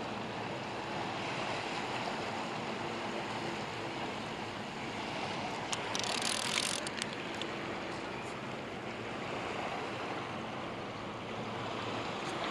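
Fast-moving river water below a dam rushing and churning steadily, with a short burst of hiss about six seconds in.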